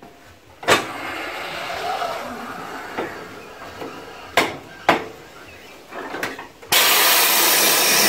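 Truck tire being worked off a dually rim on a 1967 Coats 1010 tire changer with a tire iron: rubber bead rubbing and scraping against the rim, with a few sharp knocks. Near the end a loud, steady hiss starts abruptly.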